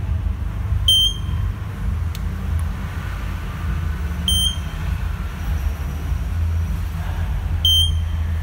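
Built-in buzzer of a 2-zone fire alarm control panel giving three short high beeps about three and a half seconds apart, over a steady low rumble.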